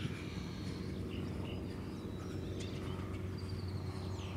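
Steady outdoor background noise: a low, even rumble with faint, short high chirps and a couple of faint distant knocks.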